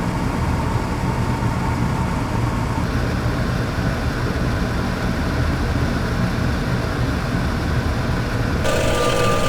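Steady, loud low rumble of heavy industrial machinery with a faint hum that drops out about three seconds in. Near the end, a different machine sound with a higher steady whine cuts in abruptly.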